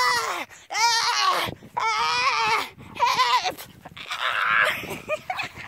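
A woman's high-pitched, wordless squeals: about five drawn-out cries in a row, each rising and falling in pitch, some of them wavering.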